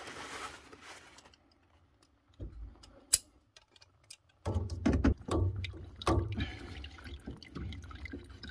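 Water trickling and dripping from drained-down central heating pipework at an open three-port valve, with clicks and knocks of pliers on the brass fittings; one sharp click about three seconds in.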